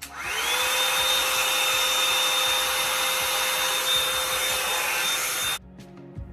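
Hot Tools One Step Blowout hot air brush switched on: its motor and fan whine up to speed within about half a second, then run steadily with a loud rushing of air and a high whine, stopping abruptly near the end. The owner calls it very loud.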